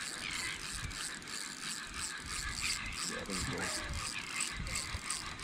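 Spinning fishing reel being cranked, its gears and ratchet giving a steady, even ticking.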